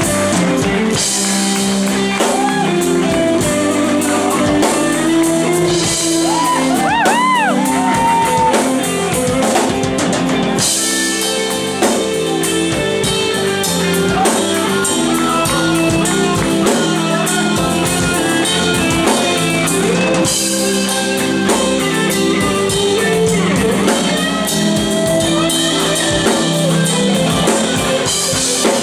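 Live band playing: electric guitar and drum kit, with a man singing into a microphone.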